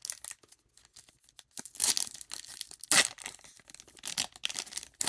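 A sealed baseball card pack's wrapper being torn open and crinkled: ragged rips and crackles that start about a second and a half in.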